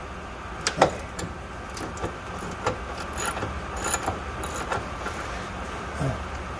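Irregular metallic clinks and taps from a 3/8-drive ratchet and deep socket being fitted to and worked on the 16 mm upper strut-mount nut, the loudest about a second in, over a steady low hum.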